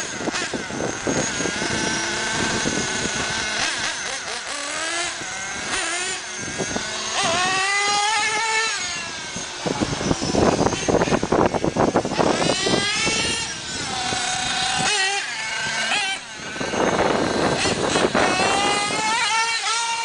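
Radio-controlled car's small, high-revving motor whining up and down in pitch over and over as the car speeds up and slows while it is driven around.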